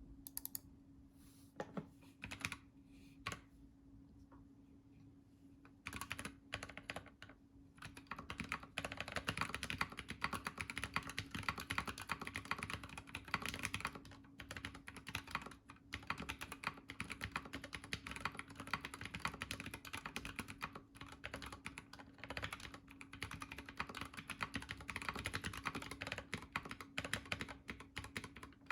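Typing on a Planck ortholinear keyboard with lubed AEBoards Naevy tactile switches and PBT keycaps. A few separate keystrokes come first, then steady fast typing from about six seconds in.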